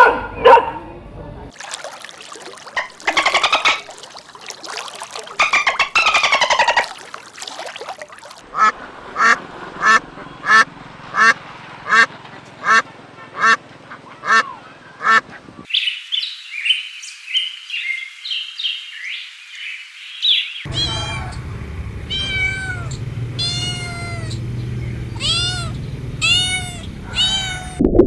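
A run of different animal calls, cut one after another: a series of short calls repeated about every 0.7 s, then high-pitched chattering, then repeated arching calls near the end.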